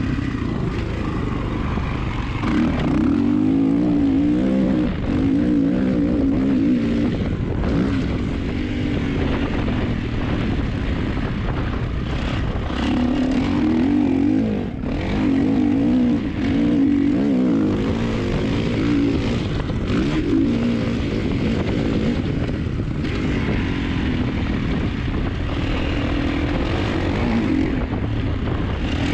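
Motocross dirt bike engine running hard under riding load, its pitch rising and falling as the throttle is worked through the corners, with a brief drop in level about five seconds in and again near the middle.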